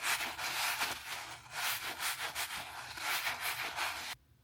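Rubbing and rustling from hands handling toys and their packaging, an uneven scratchy noise that cuts off abruptly about four seconds in, followed by a couple of faint clicks.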